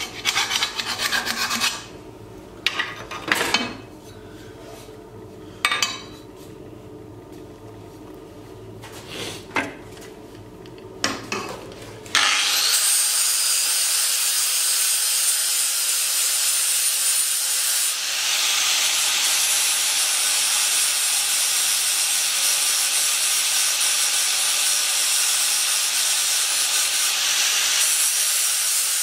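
A steel exhaust pipe being filed by hand, rasping for the first couple of seconds, then a few knocks as tools are handled. About twelve seconds in, an angle grinder starts on the pipe and runs steadily with a high whine.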